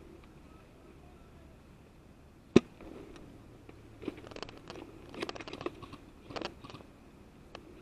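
A single sharp airsoft gunshot crack about two and a half seconds in, then several short bursts of crunching, like footsteps on dry ground.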